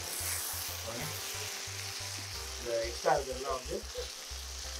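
Pieces of country chicken with dried red chillies, shallots and coconut sizzling in oil in a non-stick frying pan as a wooden spatula stirs them. The hiss is steady.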